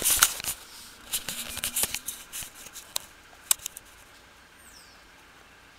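Camera handling noise: a quick flurry of rustles and clicks as the camera is swung round, dying away after about four seconds, with a faint high chirp near the end.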